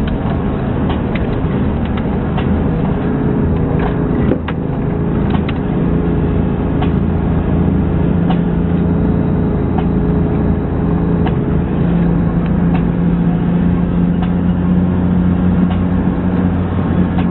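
Four-wheel-drive vehicle's engine running steadily while driving over a rough sand track, heard from inside the cab, with frequent short knocks and rattles from the bumps. The engine note dips briefly about four seconds in, then holds steady.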